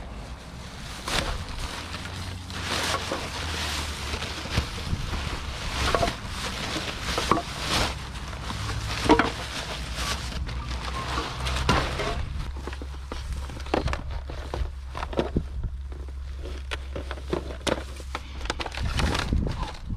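Junk being handled and pulled about: irregular knocks, clatters and rustles, with a steady low engine hum underneath.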